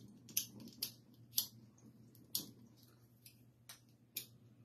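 Scattered light clicks and taps, about eight at irregular intervals, from a glass bong being handled.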